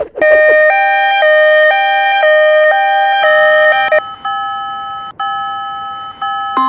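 Railroad crossing warning signal: two electronic tones alternating about twice a second, changing about four seconds in to a bell-like tone struck about once a second, each stroke dying away.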